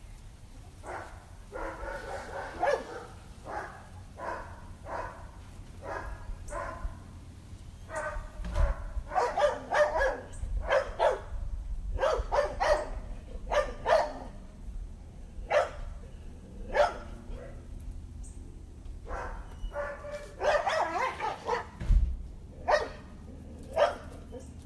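A 12-week-old Labrador puppy barks and yips over and over, in irregular runs of short barks, a couple of dozen in all. Two dull thumps fall among them.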